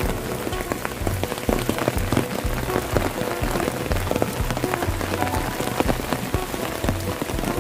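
Steady rain, with many separate drops striking close by as sharp little ticks.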